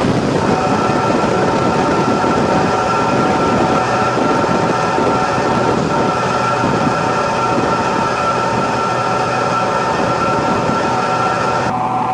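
Steady drone of a light propeller aircraft's engine and propeller heard inside the cabin in flight, a loud even rush with a few steady humming tones in it. Near the end the higher hiss drops away suddenly.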